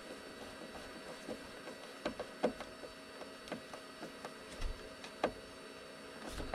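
Hand screwdriver driving a screw and washer down into a strip of wood, giving faint, irregular clicks and creaks as it is turned.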